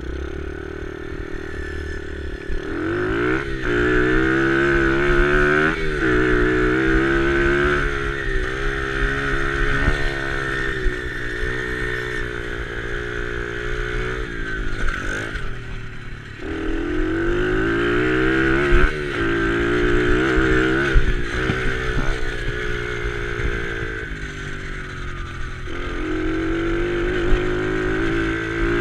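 Small dirt bike engine being ridden hard. It revs up with its pitch climbing as it accelerates, then drops back sharply and climbs again, several times over.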